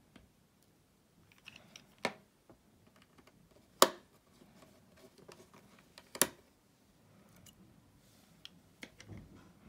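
Small phone-repair tools handled on an opened iPhone 6s and a wooden tabletop: three sharp clicks about two, four and six seconds in, with quieter taps and handling between.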